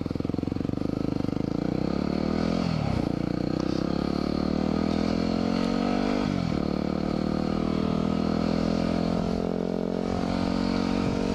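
Yamaha WR250R's 250 cc single-cylinder four-stroke engine accelerating under the rider: its pitch climbs, drops sharply at an upshift about two and a half seconds in, climbs again, drops at a second upshift about six seconds in, then pulls fairly steadily.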